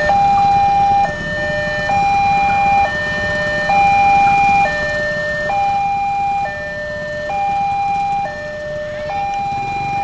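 Railway level-crossing warning alarm sounding a two-tone signal, high and low notes alternating evenly, each held a little under a second. It signals that a train is approaching the crossing.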